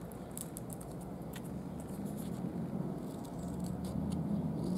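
Faint scattered small clicks and taps from handling nail-art tools and a water-decal sheet, over a low steady hum.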